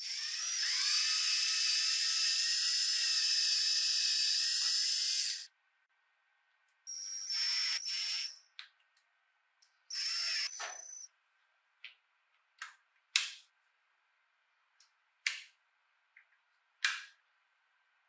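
Small power drill running steadily for about five seconds as a twist bit bores through a binder clip's wire loop into a wooden board, then a power screwdriver driving a screw in two short bursts. Several sharp clicks follow in the second half.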